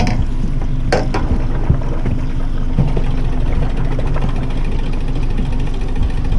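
Boat's outboard motor running steadily at trolling speed, a low even drone, with two sharp clicks about a second apart near the start.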